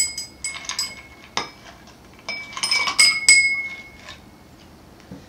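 Ice cubes clinking against glass as they are tipped from a glass pitcher into a rocks glass: scattered clinks with a glassy ring, the busiest run between about two and a half and three and a half seconds in.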